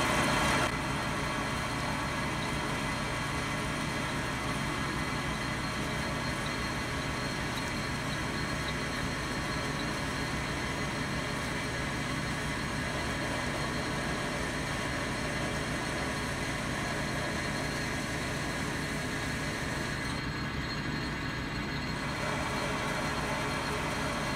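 Metal lathe running steadily, turning down metal bar stock with a cutting tool on the carriage. It makes a continuous machine drone that drops a little in level about a second in.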